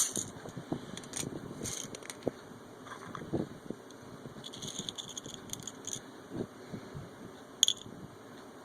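Light clicks and rustling from handling small parts by hand, with one sharper click near the end.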